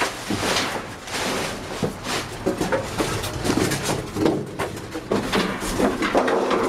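Hands rummaging through trash inside a metal dumpster: plastic bags crinkling and rustling, and used plastic cups clattering, with frequent small knocks and bumps.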